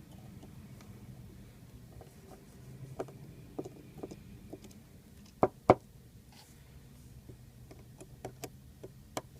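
Scattered sharp clicks and taps of a small screwdriver and tiny screws against an iPhone 4's frame as its corner screws are taken out. The loudest are two clicks close together about halfway through, with a quick run of them near the end.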